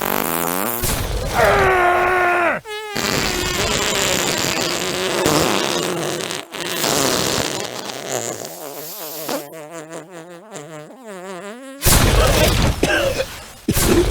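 A string of long comic fart sounds, wavering up and down in pitch, with a louder noisy blast near the end.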